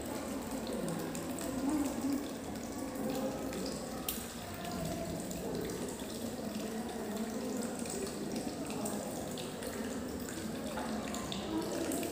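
A thin stream of water pouring from a pipe onto the plastic-spoon blades of a small model water turbine and splashing into a plastic bowl below, a steady trickling splash.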